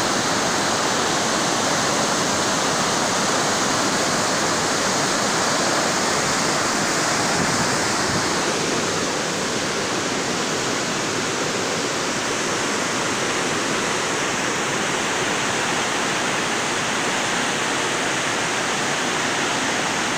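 Fast mountain river rushing over rapids and boulders: a steady, even roar of white water.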